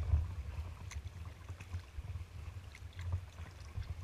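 Water splashing and dripping around a kayak on choppy water, with small scattered splashes over a steady low rumble; the loudest splash comes right at the start.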